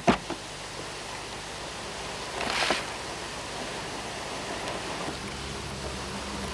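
Groundbait being rubbed by hand through a mesh riddle over a bucket, giving a short gritty rustle about two and a half seconds in, over a steady hiss. Two sharp knocks at the very start.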